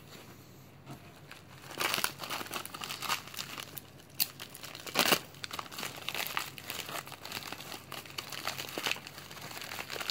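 Packaging being unwrapped by hand: crinkling and tearing with sharp crackles, starting after a short quiet spell, with a loud snap about halfway through.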